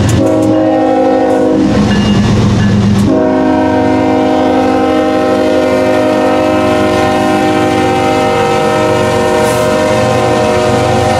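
CSX ES44AH freight locomotive's Nathan K5HLL five-chime air horn: a blast that ends after about a second and a half, then, after a short break, one long held blast. Under the horn are the rumble of the diesel locomotives and the clatter of wheels on the rails as the train passes.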